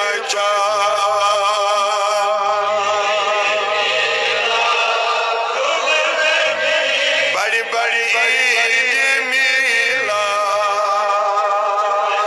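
A man singing a Kashmiri naat into a microphone, holding long, wavering notes, with a rising glide into a new phrase about two-thirds of the way through.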